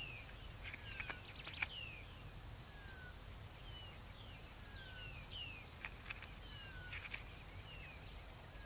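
Faint natural ambience of small birds' short, falling chirps and whistles, roughly one a second, with a few sharp ticks over a steady high hiss.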